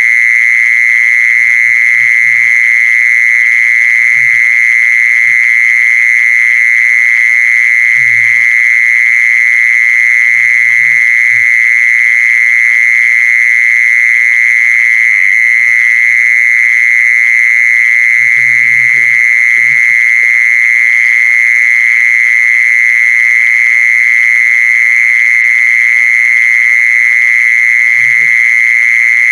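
Continuous call of a จีซอน insect, a steady, unbroken high-pitched trill that does not change in pitch or loudness. It is a recording meant to be played back as a lure call for catching these insects.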